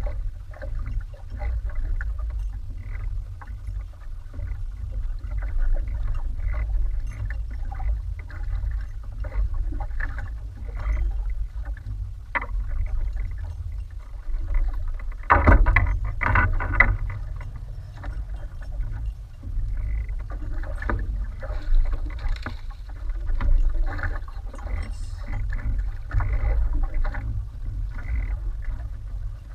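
Water lapping and splashing against the hull of a small outrigger boat over a steady low rumble, with a louder splash about halfway through.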